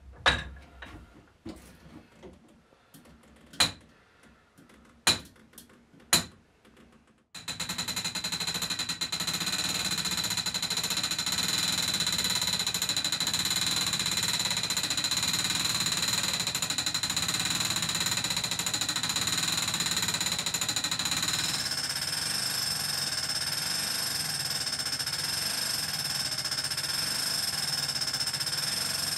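Hand-wound turret clock being wound with its crank: a few separate clicks and knocks, then from about seven seconds in a continuous rapid ratchet clatter with a steady high ringing whine, whose pitch shifts about three-quarters of the way through. The clatter stops just before the end.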